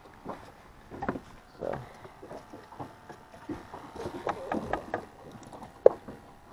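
Irregular knocks and clunks of gear being handled aboard a fishing boat, with one sharp knock near the end.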